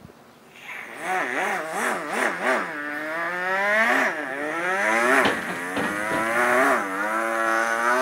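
A man imitating a Yamaha R15 sports motorcycle with his voice, revving as if racing: the engine note first wobbles quickly up and down, then climbs in long rising sweeps that drop back and climb again, like a bike shifting up through the gears.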